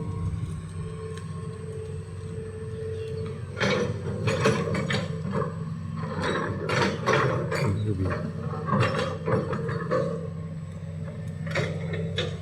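Hitachi excavator's diesel engine running steadily. A held hydraulic whine sounds for the first few seconds, then a run of irregular metal clanks and knocks from the working arm and bucket as it digs the trench, with one more clank near the end.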